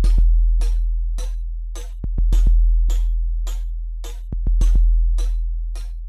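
Electronic background music: a drum-machine beat with a crisp tick about twice a second over a deep bass note that swells about every two seconds and fades between swells.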